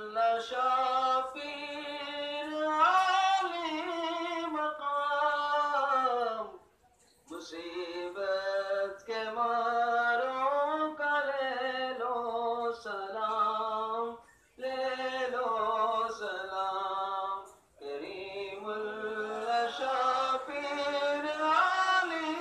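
Unaccompanied devotional singing at a Sufi shrine, sung in long drawn-out phrases with three short breaks between them.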